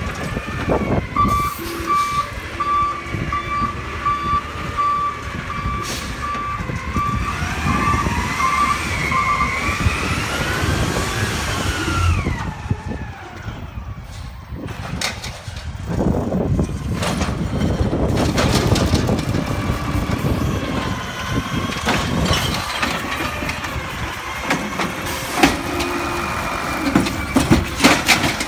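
Autocar recycling truck with an Amrep automated side-loader working at the curb: its engine runs and repeatedly revs up and down as the hydraulic arm works. A beeping alarm sounds for the first nine seconds or so, and there are scattered knocks and bangs, with a cluster near the end.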